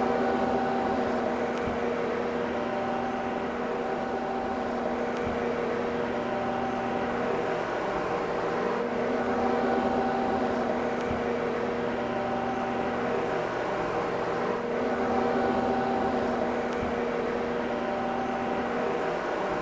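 Steady hum of running machinery with several held pitches, swelling and easing every few seconds, and a few faint knocks.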